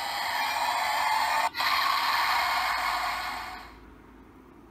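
DX Forceriser transformation-belt toy playing an electronic hissing sound effect through its small speaker. The hiss stops for a split second about a second and a half in, then fades away.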